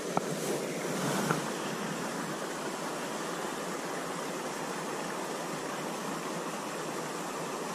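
Steady rushing outdoor background noise, with two light knocks in the first second and a half.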